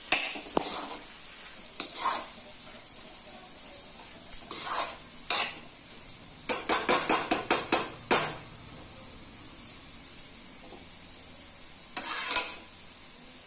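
Metal spatula scraping and knocking against a steel kadhai while stirring frying bottle gourd (lauki) and chana dal, in irregular strokes with a quick run of them about halfway through. A faint sizzle of the frying vegetables runs underneath.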